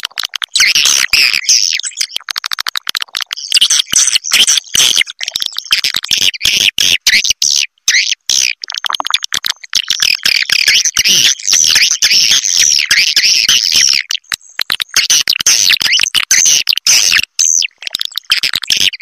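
Recorded swiftlet twittering: a dense, continuous mass of high chirps, chopped by many abrupt short gaps, played as a lure call to draw swiftlets in to roost.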